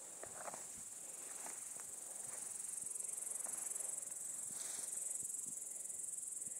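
Grasshoppers chirring: a steady, high, unbroken insect buzz, with faint rustles underneath.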